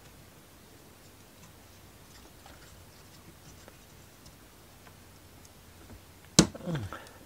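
Laser-cut wooden kit parts being handled and fitted, with faint light ticks, then one sharp loud click about six seconds in as a piece snaps into place.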